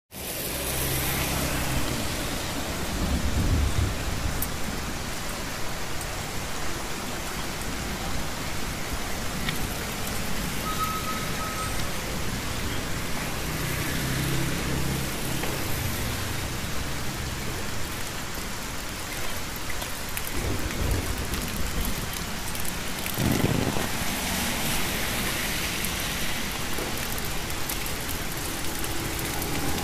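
Steady rain falling on a wet street, with motorbike engines passing on the wet road a few times, one about halfway through.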